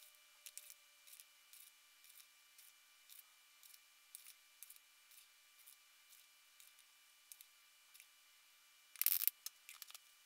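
Faint, regular soft ticks, about two a second, from a plastic bottle being tapped to shake sodium bromide powder out into a glass beaker. A louder short clatter comes a little after nine seconds as the bottle is handled and set aside.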